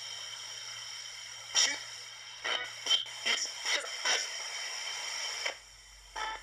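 Radio static from a Radio Shack 20-125 radio hacked as a ghost box, sweeping across the band and played through a Marshall MS-2R mini amp. About halfway through, several short choppy blips of broadcast sound break through the steady hiss. The hiss cuts out abruptly near the end.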